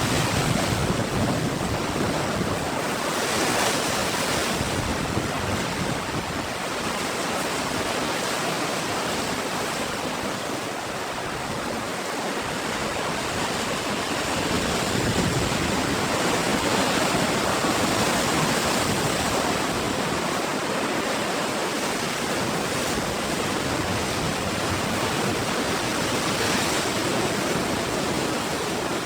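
Ocean waves breaking and washing in a continuous surf, swelling and easing slowly, with louder surges at the start, around four seconds in and between about fifteen and nineteen seconds.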